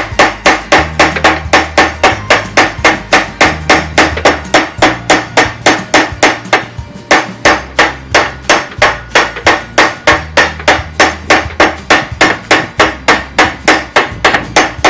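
Rapid, steady hammer blows, about three a second, on a wooden stick braced against the hub nut inside a Samsung top-load washer, driving it to turn the nut. The nut is seized with heavy scale and does not come loose.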